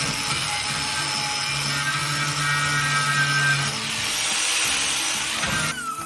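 A power tool running steadily under load on the workpiece, with background music underneath; it cuts off abruptly near the end.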